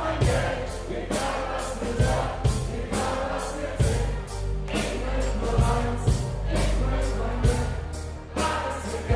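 A live band playing: a steady drum beat over a strong bass line, with several voices singing. It is recorded on a phone from the stage, so the sound is rough and thin.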